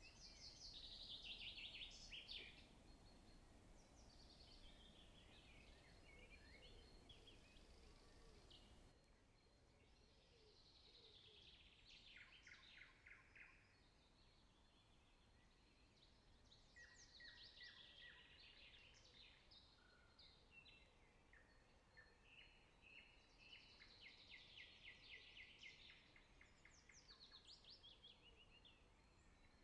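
Faint songbird song: short phrases of rapid notes falling in pitch, repeated every few seconds over a low hiss.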